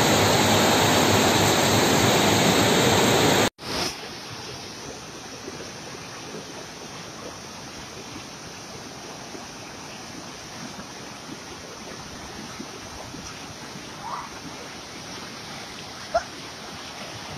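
Loud, steady rushing of floodwater that cuts off abruptly a few seconds in, followed by the quieter steady rush of a muddy flooded stream, with two brief faint tones near the end.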